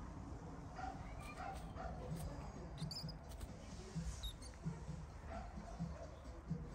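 Short animal calls, repeating roughly once a second over a steady low background hum, with a couple of brief high squeaks near the middle.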